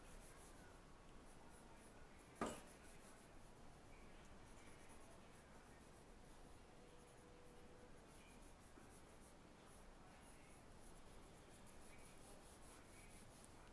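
Faint scratching of a pencil shading on paper, in quick repeated strokes. One sharp click about two and a half seconds in.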